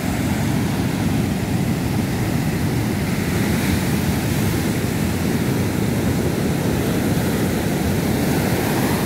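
Heavy ocean surf breaking on the beach: a steady, loud rumble of waves.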